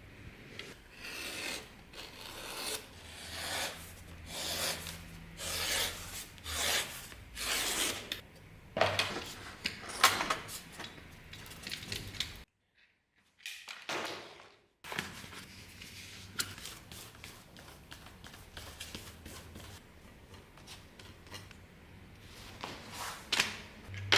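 Rhythmic rubbing strokes of hand abrasive work on a workpiece, about one stroke a second, growing louder. After a short break, lighter, irregular scraping follows.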